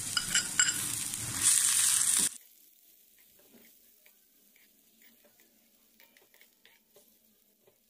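Chopped onion, capsicum, tomato and green chillies sizzling in hot ghee in a steel frying pan, with a metal spatula clicking against the pan. The sizzle cuts off suddenly a little over two seconds in, leaving only faint taps of the spatula.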